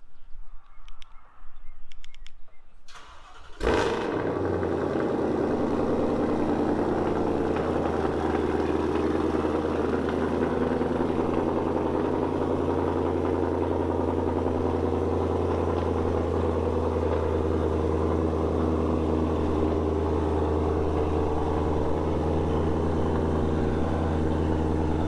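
A few faint clicks, then the 2020 Shelby GT500's supercharged 5.2-litre V8 is started about four seconds in and settles into a steady idle.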